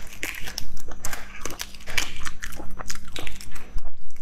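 Eggshell crackling and snapping as fingernails pick the cracked shell off a cooked egg, in quick, irregular clicks.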